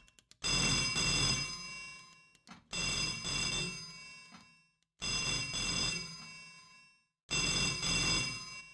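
Old candlestick telephone's bell ringing: four rings a little over two seconds apart, each ringing for a second or more and then fading away.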